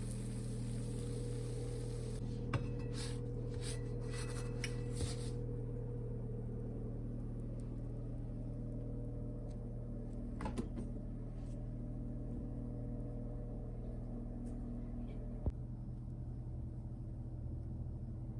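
Steady low hum of a kitchen appliance while pancakes cook, with a few light clicks and two sharp knocks of a spatula against the pan as a pancake is flipped.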